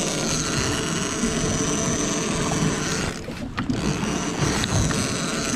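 Penn International II 80TW lever-drag big-game reel being cranked, its gears whirring and clicking as line is wound in against a hooked bluefin tuna. There is a short break in the sound about three and a half seconds in.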